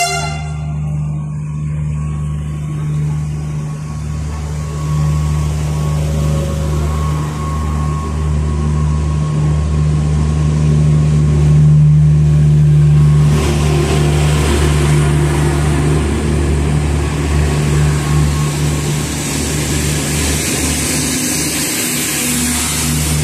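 Diesel engine of TCDD MT 15400-series railcar MT 15402 running with a steady low drone, growing louder about halfway through as the train gets under way, with a rising hiss building in the second half.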